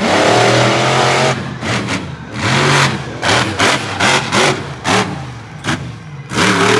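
Monster truck engine revving hard in a series of throttle blips: a long burst at the start, several short stabs through the middle, and another long burst near the end.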